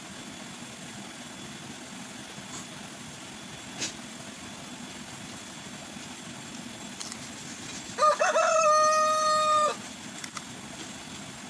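A rooster crowing once, a little past the middle: a few short rising notes, then one long held note, over a steady outdoor background hiss.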